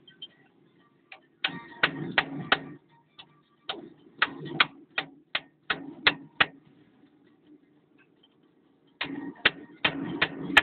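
Sharp metallic clicks from a hand wrench working the fittings on a Cat 950F loader's fuel injection pump, in three runs of about three clicks a second with short pauses between.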